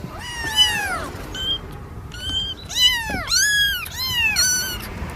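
A cat meowing repeatedly: a string of short calls, each rising and then falling in pitch.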